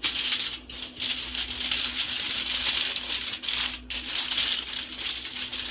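Aluminium foil crinkling and rustling continuously as it is handled and folded around a fish for roasting.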